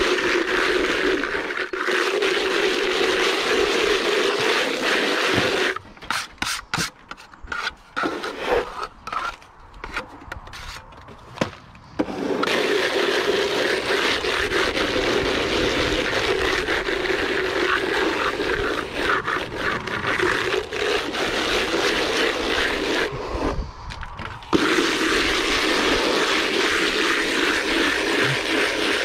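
Steady scraping and rubbing of render work, stopping abruptly twice for a few seconds with only a few light strokes in between.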